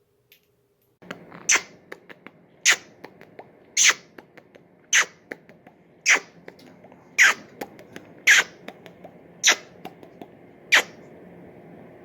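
Pet parrot giving short, sharp squeaks at an even pace of about one a second, nine in all, with fainter clicks between them, starting about a second in.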